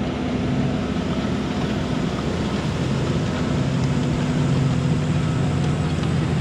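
Diesel tractor engine running steadily under a constant note.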